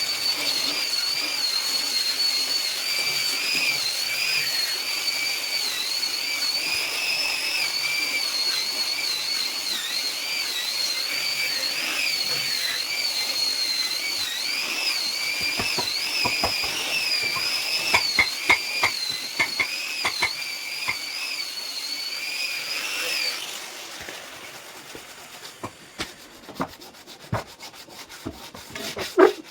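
Electric sander working on wood, its motor giving a high wavering whine that shifts as it is pressed and moved, with scattered clicks toward the end. It cuts off suddenly about 23 seconds in, followed by a few sharp knocks.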